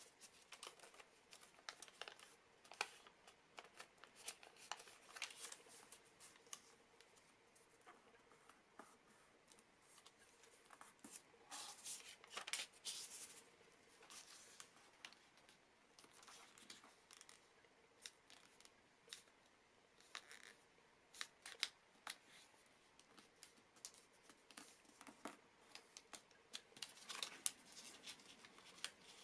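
Sheet of origami paper being folded and creased by hand on a tabletop: soft rustling with many short crisp scrapes as fingers run along the folds, busier about a third of the way in and again near the end.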